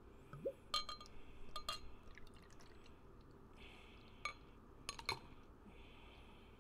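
Several light glass clinks from a beer bottle and a drinking glass. Then an imperial stout is poured from the glass bottle into the glass, in two short stretches with a couple more clinks.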